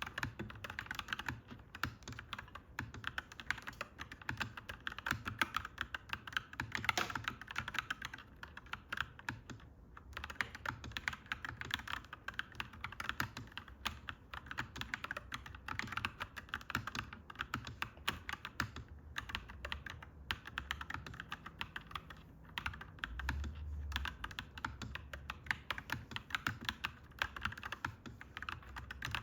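Clacky mechanical keyboard being typed on quickly and steadily, a rapid run of key clacks with a couple of brief pauses. A low rumble sits underneath and swells for a moment about two-thirds of the way through.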